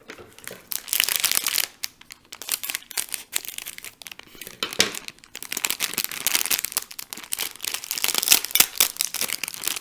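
A toy mystery pack being torn open by hand: its wrapper crinkles and tears in irregular spells of crackling, loudest near the end.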